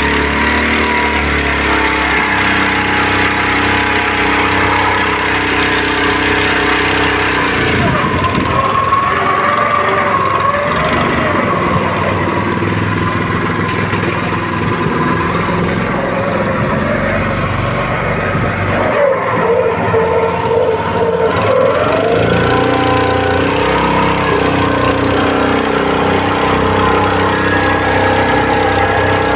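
Small single-cylinder Honda GX petrol engine driving a boat's long-shaft propeller, running steadily. Its note shifts for a stretch in the middle before settling back.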